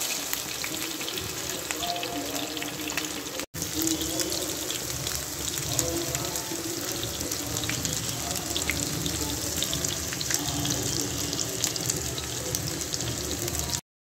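Chicken kebabs deep-frying in hot oil in a pan: a steady sizzle with dense crackling. It drops out for an instant about three and a half seconds in and stops abruptly just before the end.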